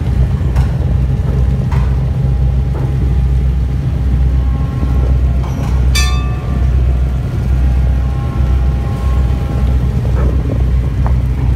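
Tugboat's engines running with a steady, loud low rumble while the tug works alongside a ship. A brief, sharp high-pitched sound cuts in about six seconds in.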